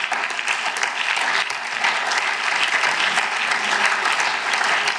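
Members of parliament applauding: many hands clapping in a dense, even patter.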